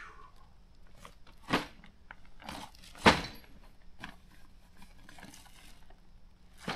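Knocks and rustling of a packed canopy in its carry bag being handled on a picnic table: a knock about a second and a half in, a louder one about three seconds in, and a smaller one near the end.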